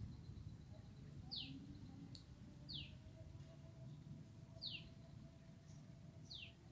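A bird calling: four short, high notes, each falling steeply in pitch, one to two seconds apart.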